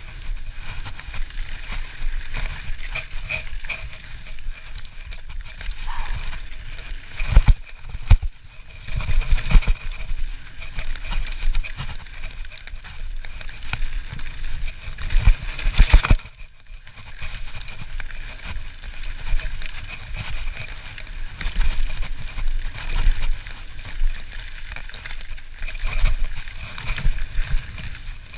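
Trek Slash full-suspension mountain bike descending a dirt and gravel trail: continuous tyre rumble and rattle of the bike over the rough ground, with a few sharp knocks from hard bumps about a quarter of the way in and again just past halfway.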